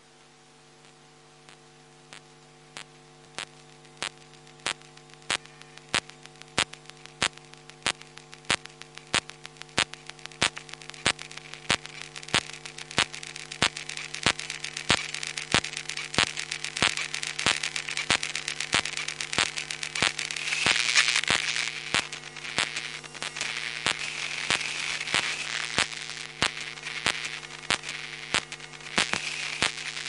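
Steady electrical hum with sharp clicks about three every two seconds, over a crackling static hiss that swells and is loudest about two-thirds of the way through: telephone-line noise and interference.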